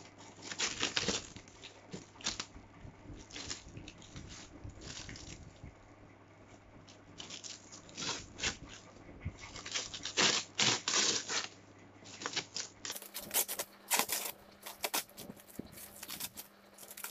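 Clear plastic wrap being pulled, torn and crumpled by hand as it is stripped off a packaged metal radiator guard: irregular bunches of crinkling and tearing rustles, with a quieter stretch about six seconds in.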